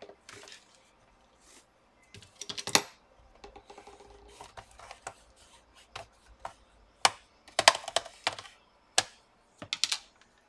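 Plastic laptop chassis being handled and moved on the bench: a string of sharp clicks and knocks, bunched about two and a half seconds in and again from about seven seconds on, with light scraping between.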